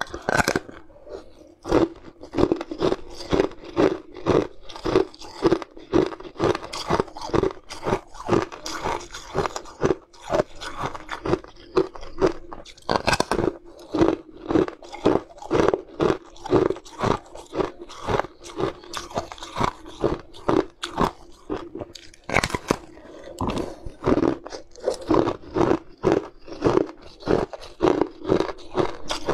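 Close-miked crunching and chewing of a brittle, glassy, translucent sweet, bitten off and ground between the teeth in a steady rhythm of about two crunches a second.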